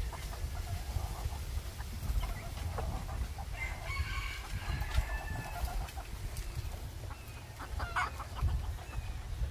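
White long-tailed rooster crowing once, a long call starting about three and a half seconds in, with a short call near the end. Wind buffets the microphone throughout as a low rumble.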